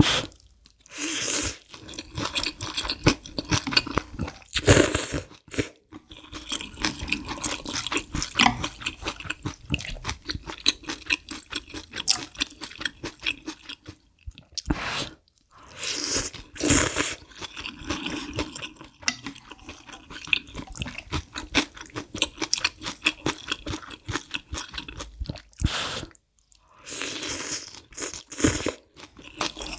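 Close-miked chewing and slurping of spicy malatang noodles and vegetables: wet, crunchy mouth sounds, with a few louder stretches of about a second.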